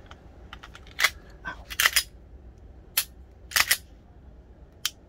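Sharp metallic clicks from a Glock pistol being handled at the bench as its newly fitted performance trigger is tried. There are about seven clicks at irregular intervals, two of them coming as quick double clicks.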